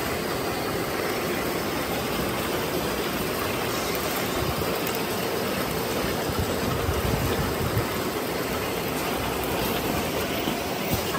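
Bouillon cube wrapping and packing line running: a steady mechanical clatter and whir of conveyors and wrapping mechanisms.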